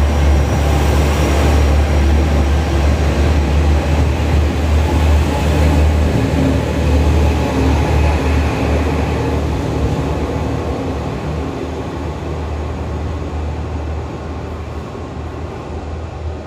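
Diesel train running, a loud low engine drone with rail noise that holds steady, then fades gradually over the second half as the train moves away.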